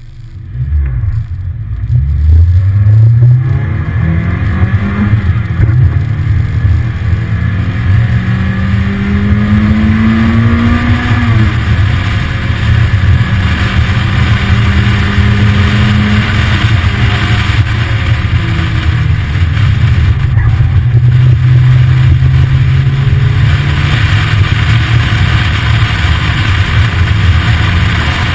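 Lotus Elise engine pulling away from a standstill and accelerating up through the gears, its pitch climbing and then stepping down at each shift, before it runs hard and fairly steady. Wind rushes over the open cockpit throughout.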